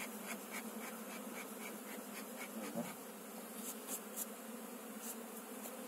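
Honeybees buzzing in a steady hum around an open hive as a honey frame is lifted out.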